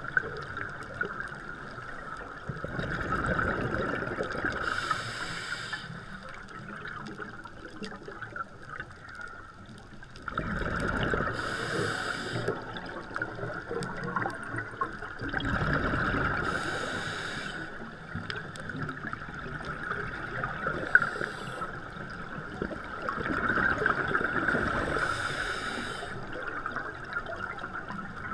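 Scuba diver breathing through a regulator underwater: a short hiss on each inhale, then a long bubbling rumble of exhaled air, about four breaths in all, over a steady high hum.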